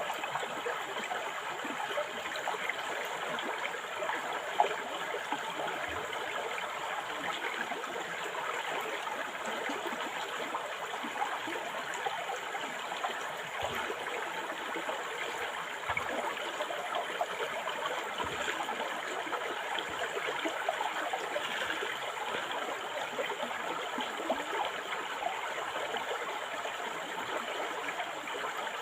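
A river or forest stream flowing over rocks, a steady rushing and burbling with small irregular splashes.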